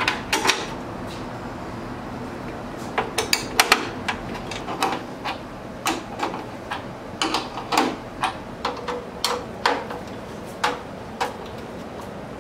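Hand wrench working bolts on a steel wagon's undercarriage: short metallic clicks and clinks at irregular intervals, some in quick runs of two or three.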